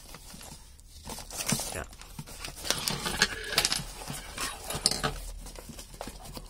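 Scratchy rustling of a nylon motorcycle tank bag and its plastic rain cover being handled, with light clicks and clinks from the straps and buckles, busiest in the middle.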